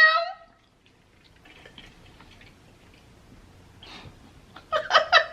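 A woman laughs in quick, regular bursts near the end, after a few seconds of quiet room sound with faint ticks.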